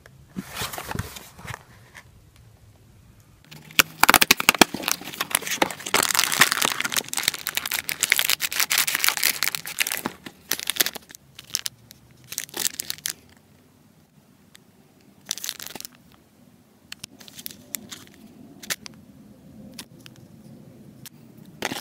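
Kracie Happy Kitchen candy kit packaging being handled: the cardboard box opened and its plastic tray and foil powder packets crinkling and rustling in the hands. The handling is heaviest from about 4 to 10 seconds in, then comes in short scattered bursts.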